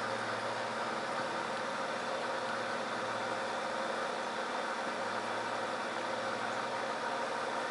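Aquarium air stone bubbling steadily, with the low, even hum of the air pump that feeds it.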